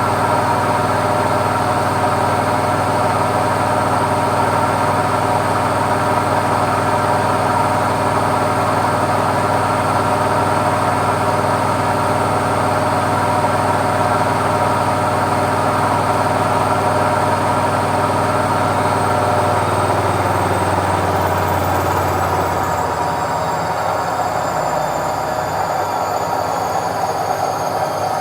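Indesit washing machine on its spin cycle, the drum whirring steadily at high speed. From about 20 seconds in, its whine slides down in pitch and the low hum fades as the spin winds down.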